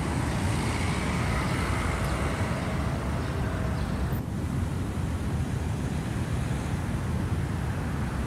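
City road traffic: a steady rumble of passing cars, with a faint steady tone in the first half and a brief dip about four seconds in.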